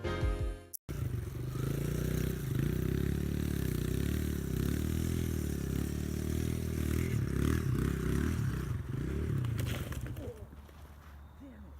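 Dirt bike engine running, its pitch rising and falling as the throttle is worked. The engine sound falls away about ten seconds in, leaving a faint background.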